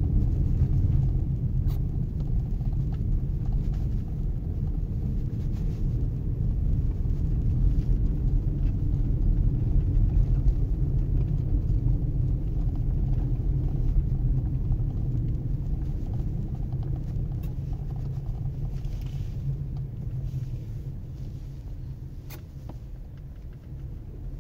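Steady low road and tyre rumble heard inside the cabin of a Lexus UX driving at low city speed, growing quieter toward the end, with a couple of faint clicks.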